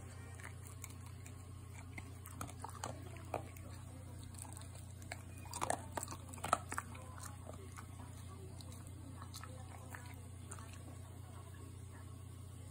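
American Cocker Spaniel crunching small pieces of dry kibble taken from a hand: scattered crunches, busiest about six seconds in.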